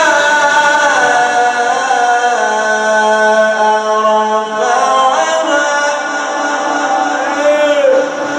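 A man's voice in melodic, mujawwad-style Quran recitation, stretching a single syllable into a long melismatic note that slides slowly up and down in pitch, with ornamented turns near the end.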